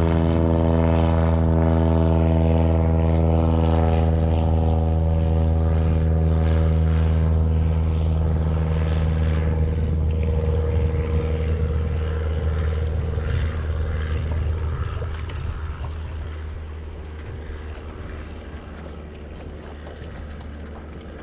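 Small fabric-covered floatplane's propeller engine at take-off power: a loud, steady drone that fades away over the second half as the plane climbs off and leaves.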